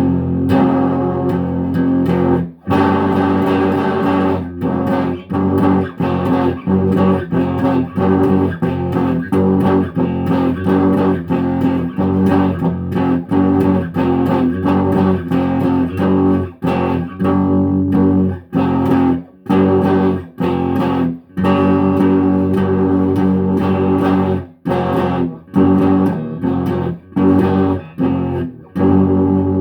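Guitar playing: sustained notes repeatedly cut off by brief silences every second or so, giving a rolling, stop-start rhythm.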